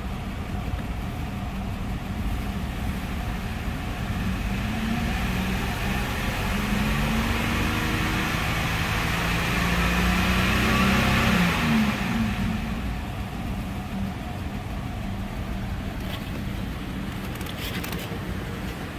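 2011 BMW X3's 3.0-litre straight-six engine idling, then revved slowly up to about 3,500 rpm and held there before dropping quickly back to idle about twelve seconds in. A few light clicks near the end.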